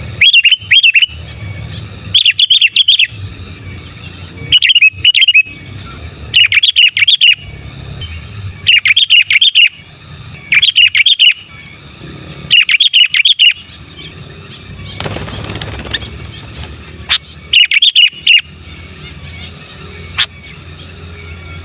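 Sooty-headed bulbul (kutilang) singing: a loud, short, bubbly whistled phrase repeated about every two seconds, about nine times. The song pauses for a few seconds past the middle, where a brief rustling noise sounds.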